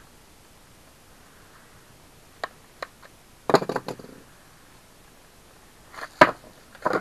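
Scattered sharp clicks and clattering knocks of new bicycle pedals and their adapters being handled: two light clicks, a brief clatter about halfway in, and louder knocks near the end.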